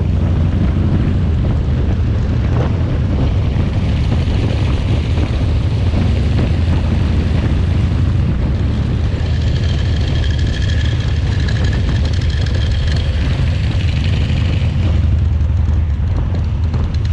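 Motorcycle running under way: a steady, loud engine rumble with wind and road noise. A thin, steady high whine comes in about nine seconds in and fades out around fifteen seconds.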